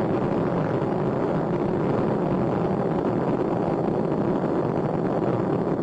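Space shuttle Endeavour's two solid rocket boosters and three main engines during ascent: a loud, steady rushing noise that does not let up, as the vehicle passes through the maximum-pressure phase of flight.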